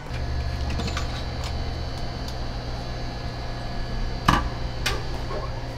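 A steady electrical hum with a faint high whine, a few light clicks, and two sharp clicks about four and five seconds in, the first the loudest.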